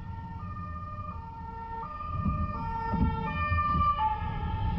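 Ambulance two-tone siren alternating between a low and a high note about every three-quarters of a second, getting louder as the ambulance comes up and passes, over the car's road noise.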